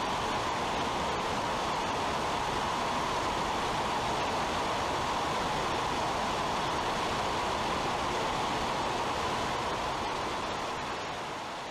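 Steady roar of rushing air and engine drone in the cargo hold of a military transport aircraft flying with its rear ramp open. It fades out near the end.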